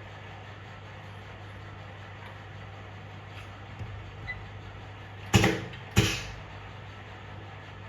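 Two sharp knocks about half a second apart, a little after the middle, each dying away briefly, with a couple of fainter taps just before; a steady low hum runs underneath.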